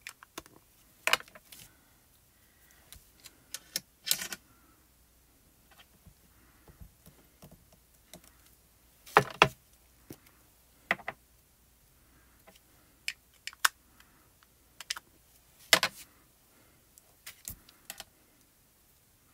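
Irregular sharp plastic clicks and taps of an ink pad being tapped onto a clear photopolymer stamp on an acrylic block, and the block being set down and pressed onto cardstock. The loudest taps come about a second in, about four seconds in, a close pair at about nine seconds, and near sixteen seconds.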